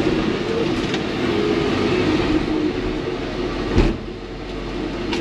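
Komatsu PC88 excavator's diesel engine running steadily under load, with a single sharp knock about two-thirds of the way through.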